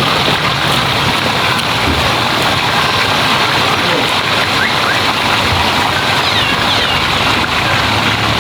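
Steady rushing, splashing water noise that stays level throughout.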